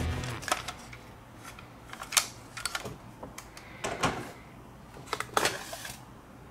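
Hard plastic transforming robot toy vehicle clicking and knocking as it is handled and set down on a play mat: a scattering of sharp clicks, the loudest about four seconds in.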